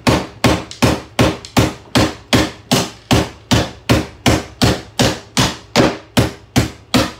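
Hammer blows striking a hair dryer in a steady rhythm, about two and a half blows a second, each one a sharp whack.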